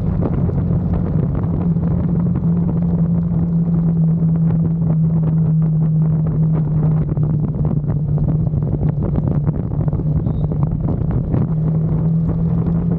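KTM RC motorcycle's single-cylinder engine running steadily, its pitch shifting slightly a few times, with wind on the microphone.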